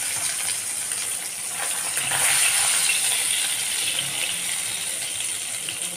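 Coconut oil sizzling in a frying pan as masala-coated king mackerel is lifted out with a spatula, the spatula moving through the spiced oil. The sizzle is steady and swells a little about two seconds in.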